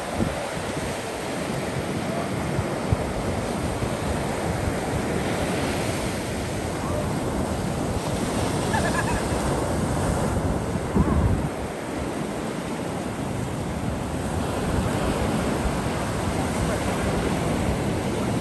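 Ocean surf breaking and washing up a sandy beach, with wind buffeting the microphone; a brief louder rumble about eleven seconds in.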